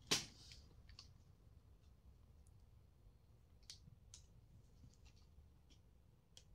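A sharp click with a brief rustle just after the start, then a few faint, scattered clicks over quiet room tone.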